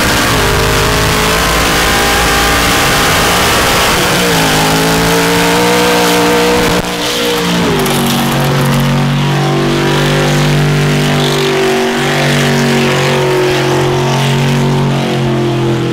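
Lifted mud truck's engine running loud at high revs while it spins its tyres in a dirt burnout. The engine note holds steady, steps down in pitch twice, about four and eight seconds in, and stops abruptly at the end.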